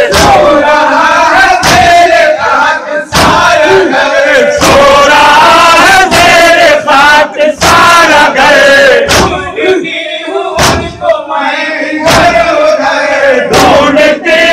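A crowd of male mourners chanting a noha loudly in unison, with sharp chest-beating slaps of matam landing together about every second and a half. The chanting thins out for a couple of seconds past the middle, then comes back in full.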